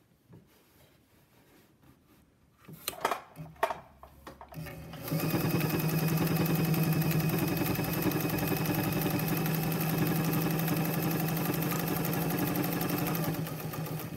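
Vintage 1950s Pfaff 130 home sewing machine: a few clicks, then about five seconds in the machine starts and runs steadily at speed with an even hum, sewing a zigzag stitch.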